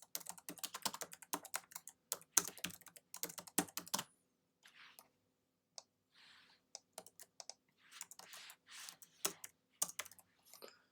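Typing on a computer keyboard: quick runs of keystrokes for the first four seconds, then scattered single keys and short bursts with brief pauses, as code is entered.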